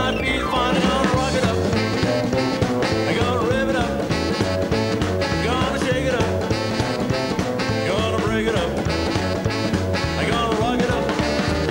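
Live rock 'n' roll band playing with a steady beat: electric guitars, upright bass, drums and saxophone.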